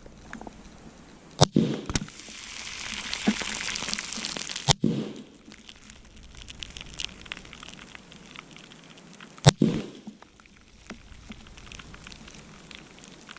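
Three AR-15 rifle shots (.223/5.56) at soda cans, about a second and a half, nearly five and nine and a half seconds in, each with a short echo. Between the first two shots, a hit can sprays with a steady hiss for about three seconds, and fine fizzing and crackling follow the later shots.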